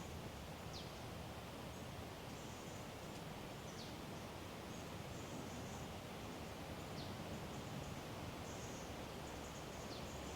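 Quiet woodland ambience with a steady low background hush. A bird gives a thin, high call that slides downward, four times about three seconds apart, over faint high chirping.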